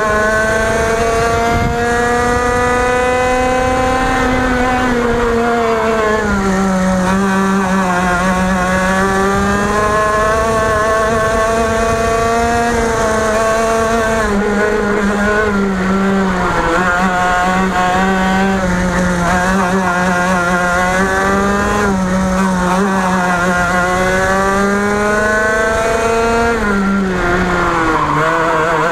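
TaG Restricted kart's 125cc two-stroke engine running hard through a lap. The pitch drops several times as it comes off the throttle for corners and climbs again as it accelerates out.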